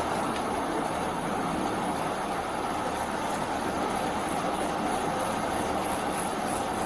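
Steady, even noise of a police car running, a hiss and hum that does not change.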